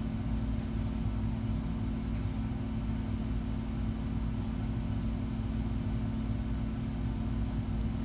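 A steady low mechanical hum with a constant pitch, unchanging throughout.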